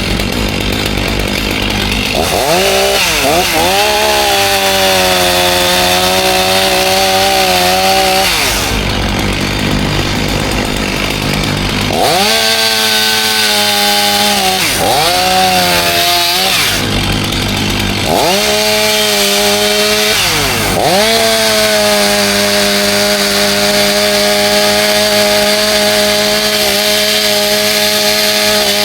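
Chainsaw held at high revs in three long runs, dropping back toward idle twice in between and revving up again each time.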